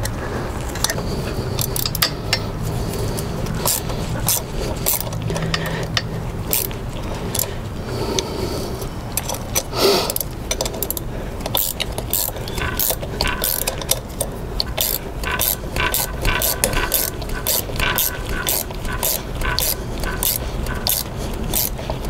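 Ratchet wrench clicking in short runs as it turns the pressing screw of a chain-breaker tool, forcing a rivet out of an old motorcycle drive chain. The clicks come faster and closer together in the second half.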